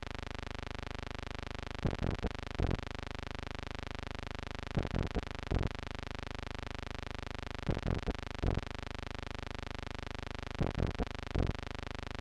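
Steady electrical hum and hiss, with a short cluster of three or four soft knocks that repeats about every three seconds.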